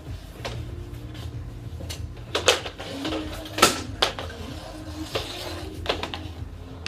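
Scattered sharp clacks and knocks of floor hockey on a hard floor: sticks, a plastic ball and goalie gear striking the floor. The loudest knock comes about halfway through.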